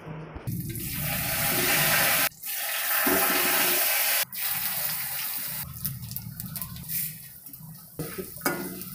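Whole spices and lentils frying in hot oil in a steel kadai while being stirred: a steady sizzling hiss that breaks off briefly about two and four seconds in, then goes on quieter and more uneven.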